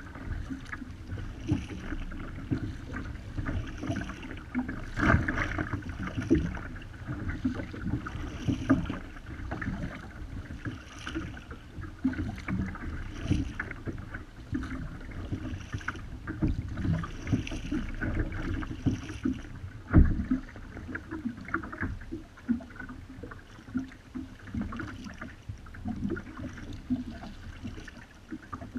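Kayak paddle strokes: the blades dipping and splashing stroke after stroke, with water slapping at the hull of a Wilderness Systems Ride 135 fishing kayak and a little wind. A sharp knock stands out about twenty seconds in.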